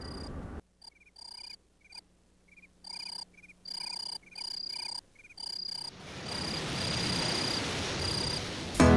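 Chirping calls of small night animals in short repeated bursts with silent gaps between them. From about six seconds in, a steady hiss swells up beneath the last few chirps.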